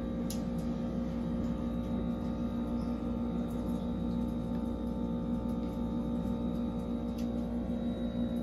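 A steady hum made of several held tones, with a couple of faint clicks.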